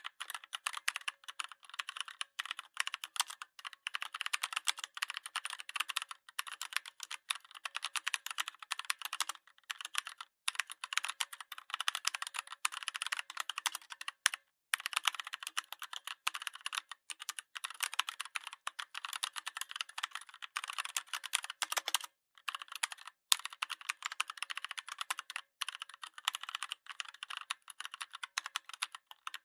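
Rapid, dense clicking like keyboard typing, running almost without break apart from a few brief pauses.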